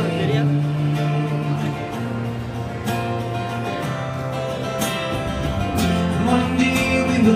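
Acoustic guitar strummed with an electric guitar playing along: a live instrumental passage with no singing.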